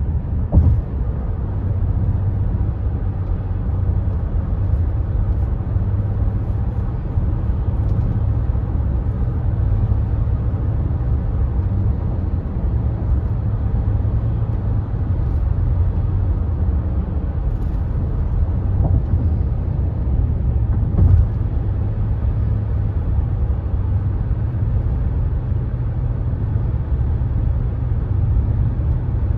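Tyre and road noise of a car driving over a highway bridge, heard inside the cabin: a steady low rumble, with a brief thump about half a second in and another about 21 seconds in.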